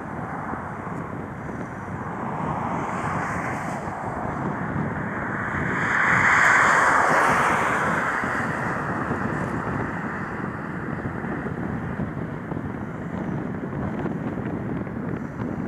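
Bombardier CRJ-700 regional jet's two rear-mounted General Electric CF34 turbofans at takeoff thrust on the takeoff roll: a steady rushing jet noise that swells to its loudest about six to seven seconds in as the aircraft passes, then slowly fades.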